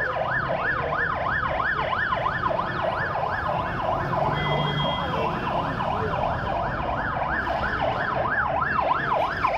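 Ambulance siren on a fast yelp, its pitch rising and falling about four times a second without pause, over a low traffic rumble.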